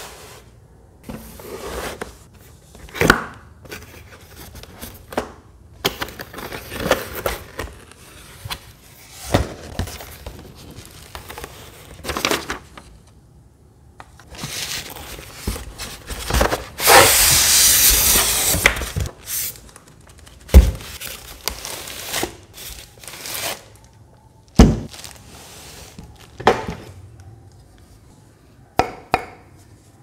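A cardboard box being opened and unpacked by hand: cardboard flaps and packing scraping, one long loud rustling scrape about halfway through as the contents slide out, plastic wrapping crinkling, and several sharp knocks as parts are set down on a table.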